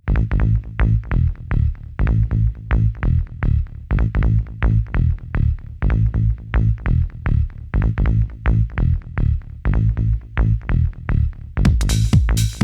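Electronic house track with a steady kick-drum beat of about two strikes a second over a pitched synth bass. Near the end a bright, hissing cymbal-like wash comes in on top.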